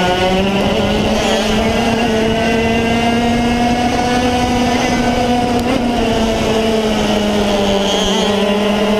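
Racing kart engine running at high revs under throttle. Its pitch climbs a little, holds high, eases off slightly midway and climbs again.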